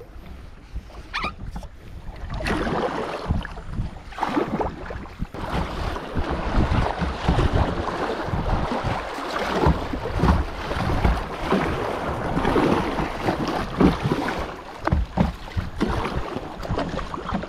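Kayak paddling on a river: irregular paddle splashes and water sloshing, with wind rumbling on the microphone. It is quieter at first and becomes fuller about two and a half seconds in.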